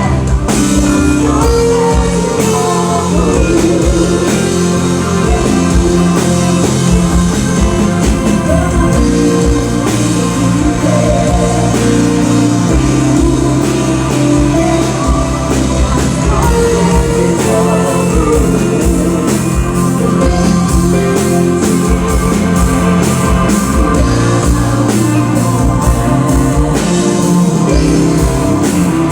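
Band music with a singer, over a steady beat with drums and low bass notes.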